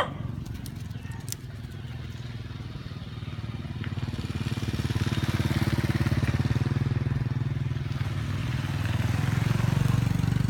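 A small engine running steadily with a fast low throb, growing louder about four seconds in and again near the end.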